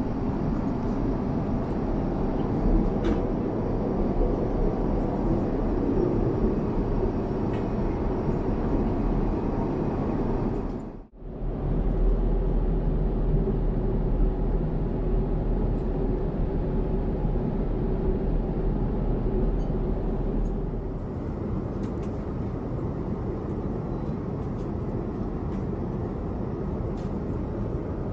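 Steady cabin noise inside an Airbus A350-900 airliner, a low, even rumble. It drops out briefly about eleven seconds in, and from about twenty-one seconds in it runs a little quieter.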